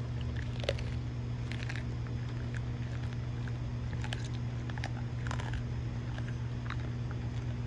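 Doberman chewing a whole raw squirrel: irregular crunches and cracks as its teeth break through the small bones, coming about once a second, over a steady low hum.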